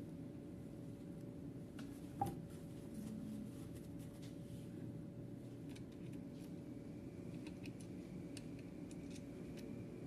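Steady low room hum with faint scattered small clicks, and one sharper metallic click about two seconds in.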